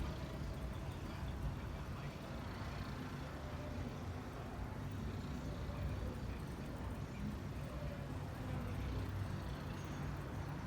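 Steady low rumble of a heavy rainstorm, with no sharp thunderclap.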